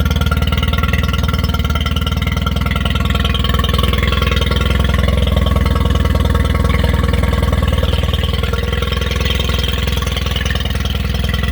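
Carbureted outboard boat motor idling steadily in neutral, its firing even and unchanging.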